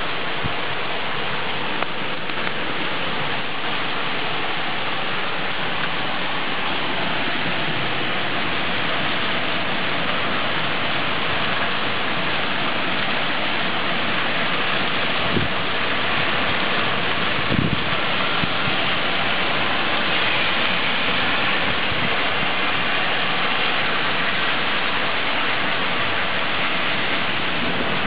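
Heavy rain pouring down in a thunderstorm: a steady, dense hiss of rain on the ground and foliage, with a couple of brief knocks about fifteen and seventeen seconds in.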